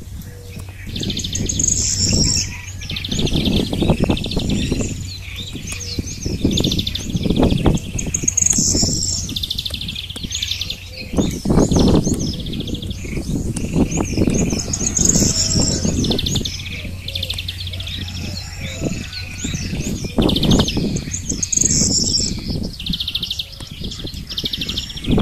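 A hand hoe chopping repeatedly into dry, salt-crusted clay soil, dull thuds coming every second or two as the bed is turned over. Small birds chirp and trill throughout.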